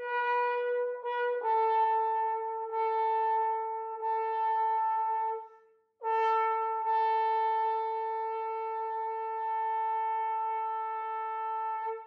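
Trombone played solo high in its range: a few short notes, then a held note a step lower, a brief breath near the middle, and a long sustained note of about six seconds.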